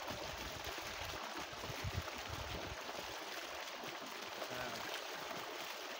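Water gushing from a pipe into a plastic-lined pit that is already partly full, a steady splashing rush.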